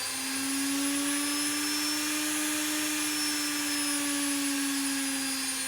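Indesit washing machine motor running free on the bench, fed 240 V through a voltage regulator: a steady electric whine whose pitch rises a little and then eases back. The motor runs because the pin bridge is wired correctly.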